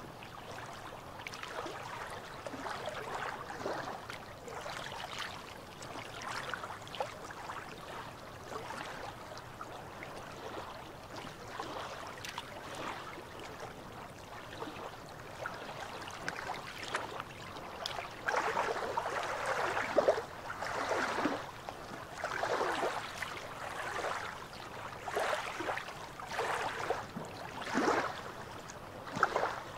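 Small waves lapping and splashing against rocks at the water's edge in irregular slaps, louder and more frequent in the second half.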